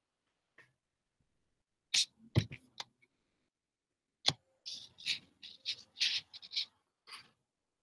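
Scattered short rustles and knocks, about a dozen over five seconds, with dead silence between them. They come from a person in a jiu-jitsu gi moving close to the microphone of a video call.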